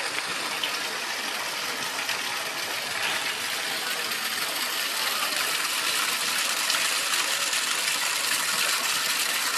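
Small waterfall pouring from a stone wall into a pond, a steady rushing splash that grows a little louder.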